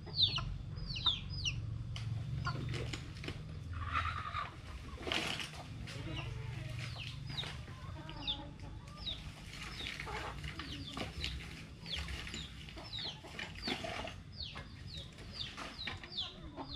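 Free-range chickens clucking, with many short high chirps that fall in pitch scattered throughout.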